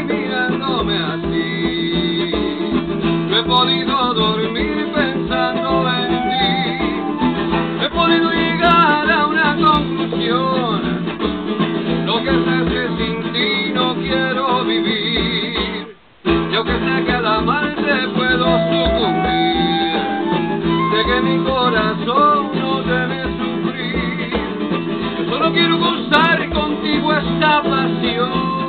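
Acoustic guitar and transverse flute playing live together, an instrumental passage of a slow ballad with the flute carrying a wavering melody over the strummed guitar. The sound cuts out for a moment about halfway through.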